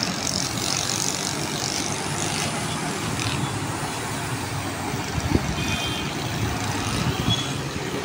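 Steady engine and traffic noise from a busy street and a construction site's heavy machinery.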